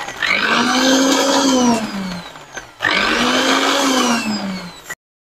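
Countertop blender chopping dried chillies in two bursts about two seconds long, the motor's pitch rising as it spins up and falling as it slows each time; the sound cuts off suddenly near the end.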